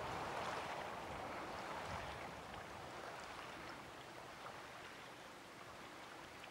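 Faint lapping and trickling water, fading slowly.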